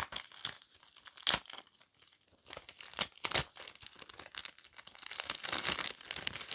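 Tape and packaging being pulled and torn off a tightly taped package, with crinkling. It comes as a few sharp rips a second or two apart, then a longer stretch of tearing near the end.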